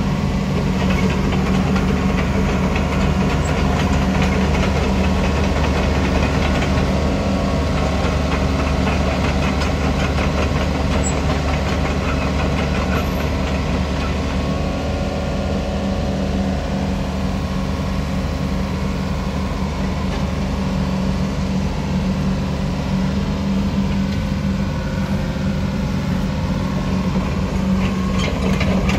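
Doosan DH60-7 midi excavator's diesel engine running steadily while the machine is operated.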